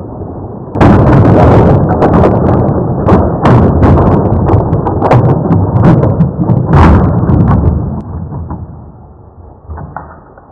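Loud crashing clatter of plastic Lego trains colliding head-on and derailing: it starts suddenly about a second in, with many sharp clacks and knocks over a dense rattle, and dies away after about eight seconds.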